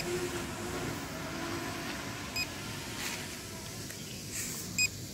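SJRC F11s quadcopter's brushless motors and 7035 propellers humming in flight overhead, the pitch wavering as the drone jerks along in return-to-home, which the owner blames on a flight-controller firmware fault. A short high electronic beep sounds three times, about every two and a half seconds.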